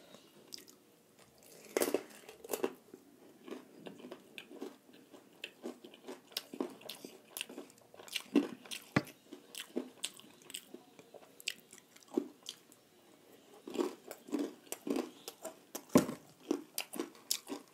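Close-miked chewing and biting of fried food: irregular short wet clicks and snaps, several a second, growing busier toward the end, with one sharper click about sixteen seconds in.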